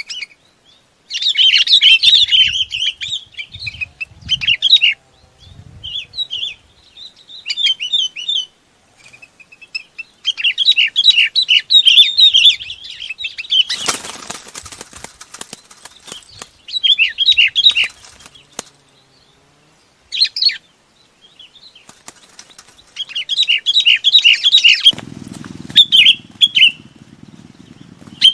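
Bulbuls (chim bông lau) calling to the flock in repeated bursts of quick, bubbly chirped phrases, with short gaps between. About halfway through there is a brief noisy rustle, and a low steady hum comes in near the end.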